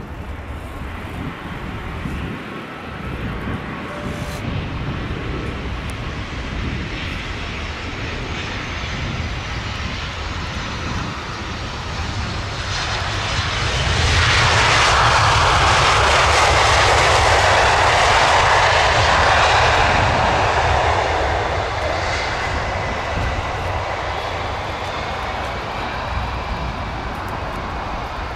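Airbus A319CJ with IAE V2500 jet engines landing: a steady approach whine, then about halfway through a loud roar of reverse thrust for some seven seconds as the jet brakes on the runway, dying back down as it slows.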